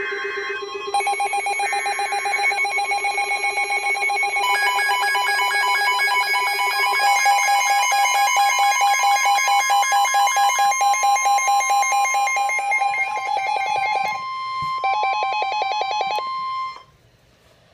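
Emergency Alert System weather-radio alert: two short screeching data bursts at the start, then the steady 1050 Hz warning alarm tone with several electronic alert tones beeping and warbling over it. It all cuts off suddenly about 17 seconds in.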